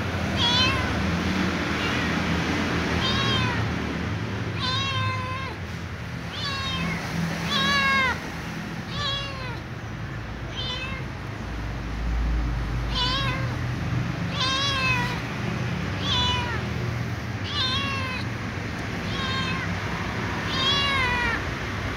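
Young ginger kitten meowing over and over, short meows that rise and fall in pitch, about one every second or so: begging for dry food.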